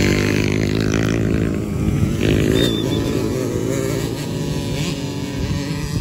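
Small kids' dirt bike engine running as it rides past and away, its pitch rising and falling with the throttle and the sound slowly getting quieter.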